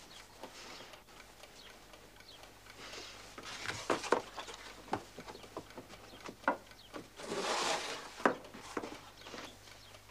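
Scattered light knocks and taps on wooden floorboards as someone moves about and handles things on the floor, with a short rustle of cloth about three quarters of the way through.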